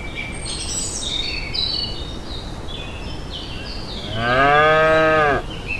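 Birds chirping, then a cow moos once about four seconds in, one drawn-out call a little over a second long and the loudest sound here.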